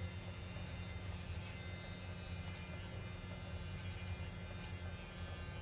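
Steady low electrical hum in a small room, with a few faint snips of hairdressing scissors.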